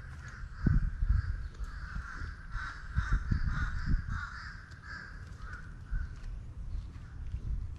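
Birds calling over and over in a steady run of short repeated calls that stops about six seconds in, with irregular low thumps underneath.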